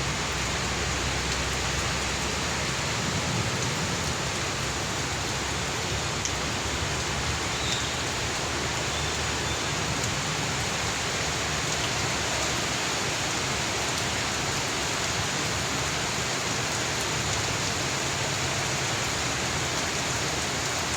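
Heavy rain pouring down steadily, an even hiss of downpour on surfaces.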